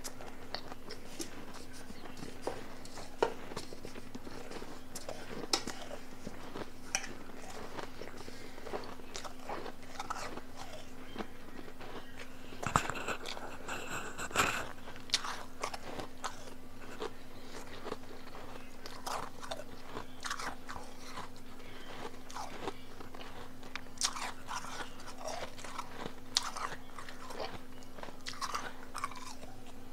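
Close-up biting and chewing of powdery blended ice: many small crisp crunches, thickest in a cluster about thirteen seconds in. A faint steady low hum runs underneath.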